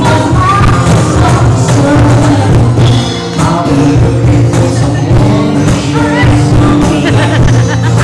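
Live pop song sung by a woman and a man into microphones, with acoustic guitar accompaniment.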